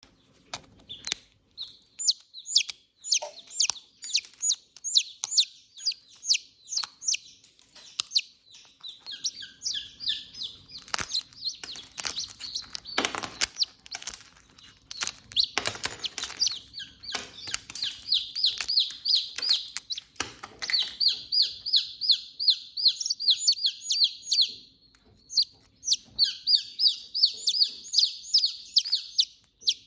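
Parrot-beak long-tail Aseel chicks peeping: a steady run of high, falling peeps, several a second, with a few knocks in the middle.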